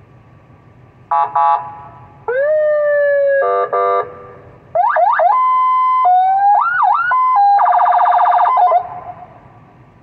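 200-watt PA siren playing through a Federal Signal speaker and stepping through its tones. Two short buzzy horn blasts come about a second in, then a tone that jumps up and slowly falls, another blast, rising yelping sweeps with a held note, and a fast warble that stops near the end.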